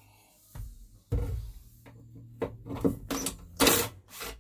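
Cordless drill driving a self-tapping screw through a sheet-metal bracket: the motor whirs steadily from about a second in, and several sharp clicks and knocks of the driver and screw on the metal follow in the second half.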